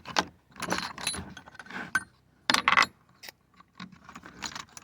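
Metal drill bits clinking and rattling in their case as someone rummages for the right bit, in irregular bursts with the loudest clatter a little past halfway.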